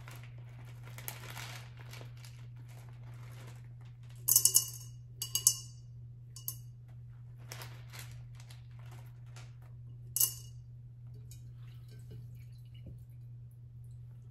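Rustling of artificial flower stems being handled, then three sets of sharp metallic snips with a brief ring, from scissors cutting the stems. A steady low hum lies underneath.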